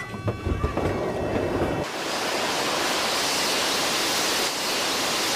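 Low rumble as the A380's emergency exit door is thrown open, then, about two seconds in, a loud, steady rushing hiss of the evacuation slide inflating.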